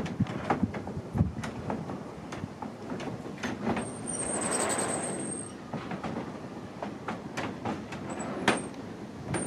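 Wooden sliding storm shutters (amado) of a traditional Japanese house being rolled closed along their wooden track. A rolling rumble swells midway with a high squeak over it, and panels knock sharply as they meet, loudest near the end.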